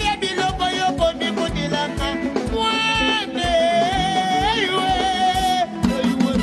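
Live band music with a quick, steady drum beat and a long, wavering melody line held through the middle, dipping briefly just before the end.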